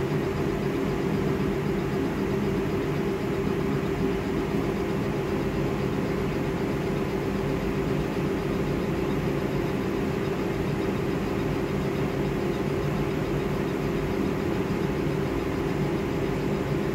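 Laser engraving machine running as it engraves a frosted glass jar on its rotary attachment: a steady mechanical hum with a steady mid-pitched tone.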